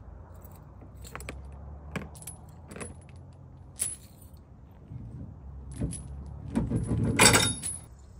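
Metal clicks and clinks from handling a power cord and its plug at a portable generator, several sharp ones in the first four seconds, then a louder jangling clatter near the end, over a low steady hum.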